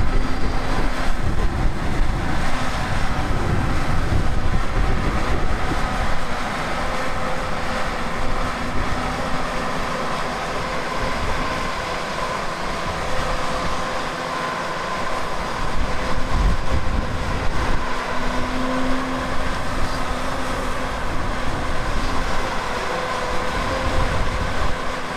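Hyundai HX220AL excavator's diesel engine and hydraulics running steadily as it digs, a low rumble with a steady hum over it that swells and eases as the machine works.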